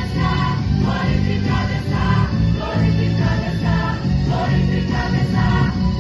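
Choir singing a gospel worship song with band accompaniment.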